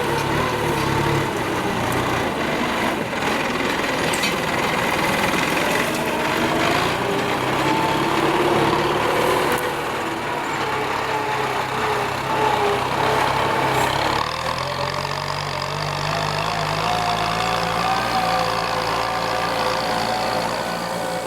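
Kubota M9540 tractor's diesel engine working under ploughing load, its pitch rising and falling and running steadier and higher in the last few seconds.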